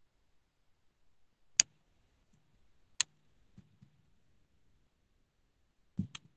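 A few sharp, isolated clicks against a quiet room: one about a second and a half in, another about a second and a half later, and a quick double click near the end.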